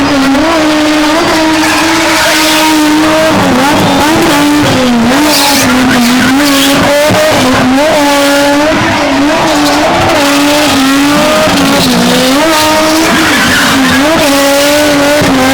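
BMW E30 spinning car's engine held at high revs, the pitch dipping briefly and climbing back again and again, with tyres skidding and squealing on the tarmac.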